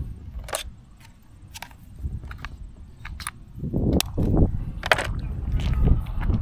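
A string of irregular sharp clicks and snaps as an action camera and its mounting parts are handled and unclipped from a hard carrying case, over low rumbling handling noise.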